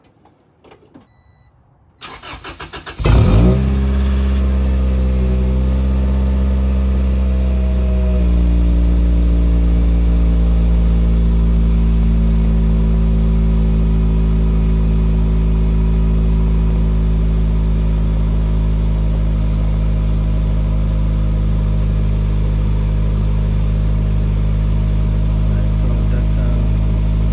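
1996 Acura Integra GSR's 1.8-litre four-cylinder engine starting from cold through a newly fitted aftermarket cat-back exhaust. The starter cranks for about a second, the engine catches about three seconds in, and it settles into a steady idle that drops slightly in pitch about eight seconds in.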